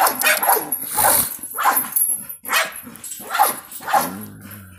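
A dog barking repeatedly, roughly a bark every half second to second, with a longer, lower, drawn-out bark near the end.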